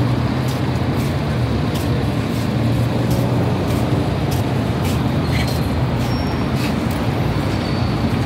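Steady low rumble of city road traffic and idling engines, with faint sharp ticks about twice a second.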